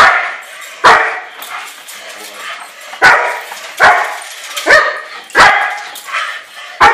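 A young German Shepherd barking repeatedly while lunging on its leash in bite-work training: about seven loud, sharp barks at uneven intervals, roughly one a second.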